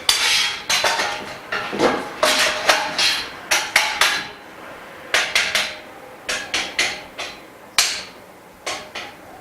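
Metal frame bars of a dust-free workbench being knocked into their joints: a rapid, irregular run of sharp metallic knocks, each with a short ring, dense in the first few seconds, then in smaller clusters with a brief pause in between.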